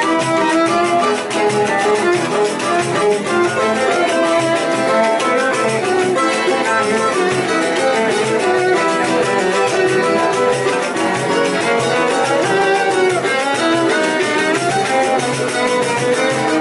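Live choro ensemble playing: cavaquinhos and seven-string guitars strummed and plucked in a quick rhythm, a pandeiro keeping time, and a bowed cello among the melody lines.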